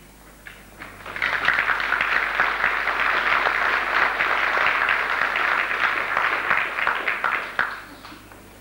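Audience applauding; the clapping starts about a second in and dies away near the end.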